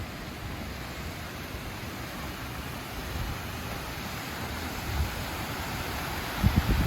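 Steady outdoor wind noise, with a few low gusts buffeting the microphone about six and a half seconds in.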